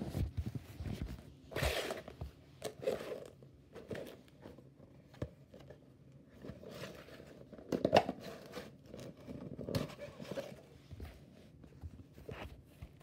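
Handling noises: a paper gift bag rustling and a cardboard box knocking and scraping on a wooden floor, in irregular short rustles and taps, the loudest about two-thirds of the way through.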